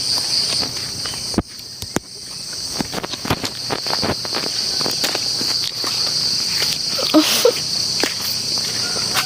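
Footsteps walking along a path, with scattered irregular steps, over a steady high-pitched insect chorus.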